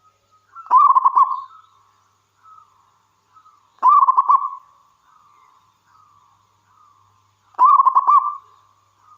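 Zebra dove (perkutut) cooing: three loud phrases of quick, rolling staccato notes about three and a half seconds apart, with softer coos in between.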